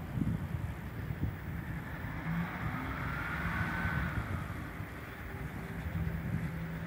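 Diesel engine of an EMD GR-12W diesel-electric locomotive running as the locomotive moves slowly, giving a steady low engine note. A faint high whine rises and falls around the middle.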